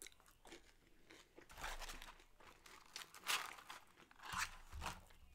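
Close-up eating sounds: French fries being bitten, chewed and crunched in several short bursts.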